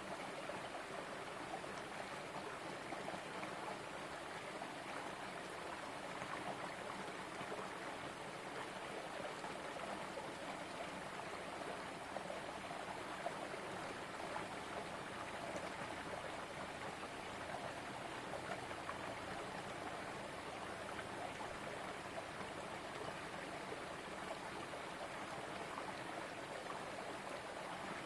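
A shallow rocky stream running over stones, a steady rush of flowing water.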